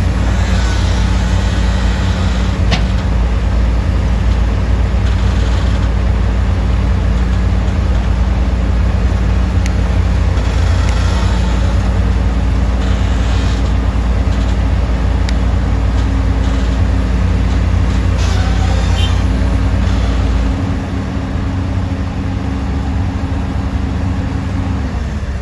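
Komatsu PC200 excavator's diesel engine running steadily under working load, a deep rumble with a steady hum over it. About twenty seconds in, the lowest rumble drops off and the sound becomes a little quieter.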